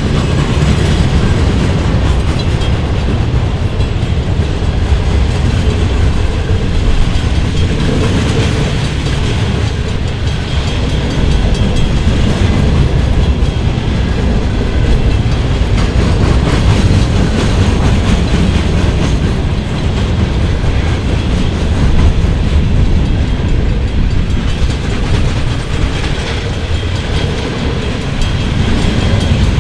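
A CN freight train rolling past close by: a steady, loud rumble with the wheels clicking continually on the rails.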